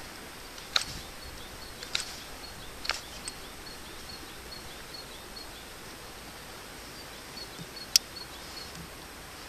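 Small Victorinox pocket knife whittling an ash stick: sharp clicks of the blade cutting the wood, three about a second apart in the first three seconds and one louder click near the end. Under it a steady outdoor hiss and faint high chirps repeating a few times a second.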